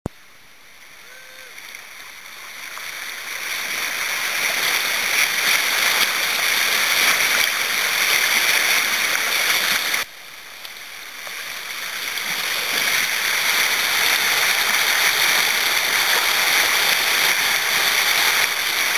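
Rushing whitewater of a small creek wave and rapid, a steady loud hiss. It builds over the first few seconds, drops off suddenly about halfway through, then swells again.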